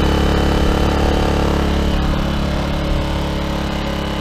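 Dirty Hand Tools 800-watt inverter generator's 40 cc four-stroke engine running at a steady speed.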